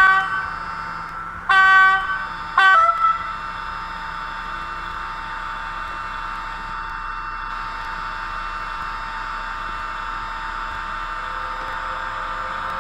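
Sound decoder of a Roco HO-scale SNCF BB26000 electric locomotive model, played through its small onboard speaker: the horn gives three short blasts in the first three seconds, the last one dropping in pitch. After that comes the locomotive's steady standing sound, an even hiss with a low hum.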